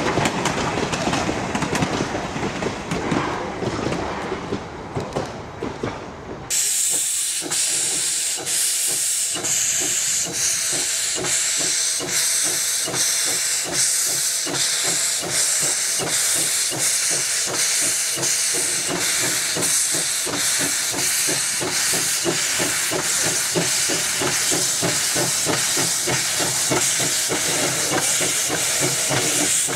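For the first few seconds, passenger coaches rolling past with a clickety-clack of wheels on rail joints. Then, abruptly, narrow-gauge 4-6-0 steam locomotive No. 152 working past with its cylinder cocks open: a loud steady hiss of blowing steam over rhythmic exhaust chuffs.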